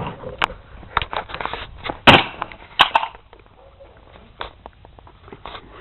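A television set being smashed with a sledgehammer: a series of sharp cracks and crashes of breaking casing, the loudest about two seconds in, then a few fainter knocks near the end.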